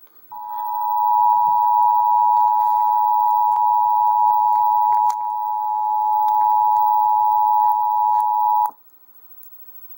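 Emergency Alert System attention signal: the steady two-tone alarm of 853 Hz and 960 Hz sounded together, held for about eight seconds before it cuts off suddenly. It heralds a tornado warning.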